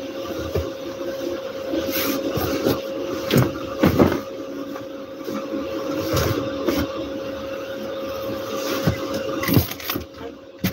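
Bed sheets and blankets rustling and flapping as they are pulled, spread and tucked into a bed, with scattered soft thumps, over a steady hum.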